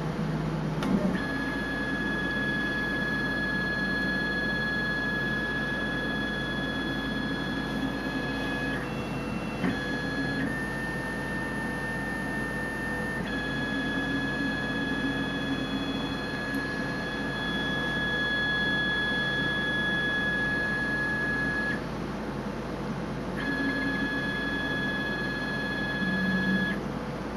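Stratasys Dimension BST 768 3D printer's stepper motors whining at a steady pitch as the machine moves its head and platform to check that the model base is level. The whine stops and restarts several times, briefly shifting to a higher pitch, over a steady machine hum.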